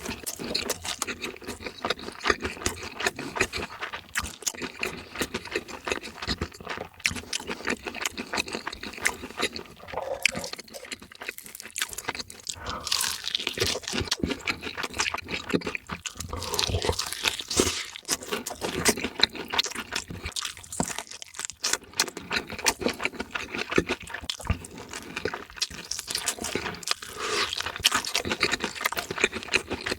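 Close-miked eating sounds: crunching and wet chewing of fried chicken food, a dense run of crackles and clicks.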